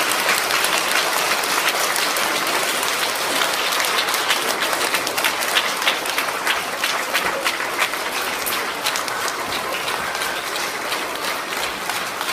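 Audience applauding: many hands clapping together at once, steady and loud, easing a little toward the end.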